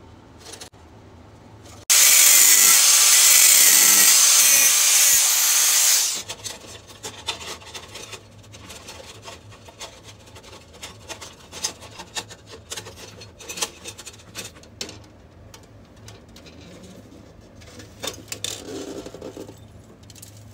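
Stainless steel sheet being cut: a loud steady cutting noise starts abruptly about two seconds in and lasts about four seconds. Then come light metal clinks, taps and scrapes as the stainless parts are fitted into a steel box.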